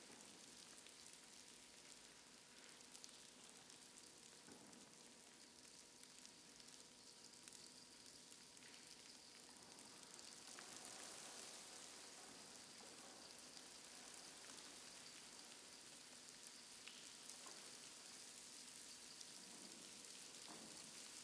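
Near silence: a faint steady hiss with a few soft crackles.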